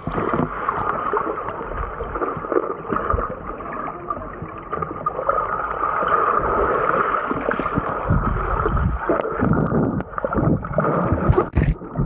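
Stream water heard underwater through the camera: a muffled, steady rush with gurgling. Heavier low churning of bubbles and splashing swells up near the end.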